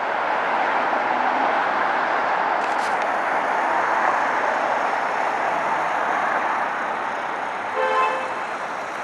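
Steady urban road-traffic noise from cars passing on a busy street, with a short horn toot near the end.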